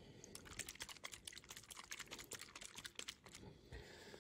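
A plastic pot of Citadel Shade wash shaken hard by hand, giving a quick run of faint clicks and taps.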